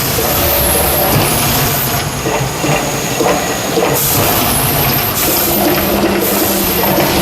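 Mirage volcano eruption show roaring loudly and continuously: a dense rumbling wash with hiss, without breaks.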